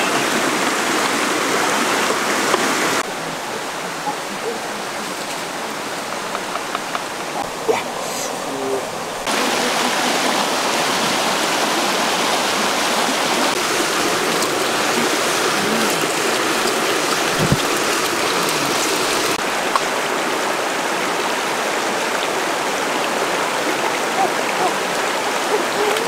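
Stream water rushing over rocks in small rapids: a steady, even hiss. It drops to a lower level about three seconds in, with a few faint knocks, and comes back up around nine seconds in.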